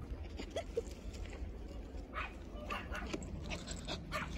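Small dogs yipping and barking in short bursts, several in the second half, over a low steady rumble.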